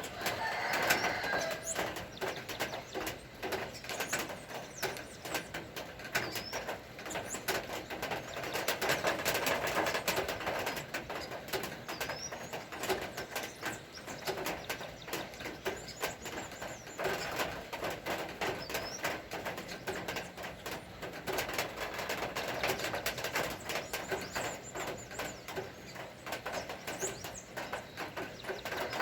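Rain falling, with a dense patter of drops and drips ticking irregularly throughout, and birds chirping now and then.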